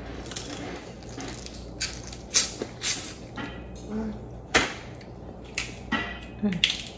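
Boiled crawfish being cracked and peeled by hand, with eating sounds: soft crackling of shell broken by a handful of sharp snaps, the loudest a little past the middle.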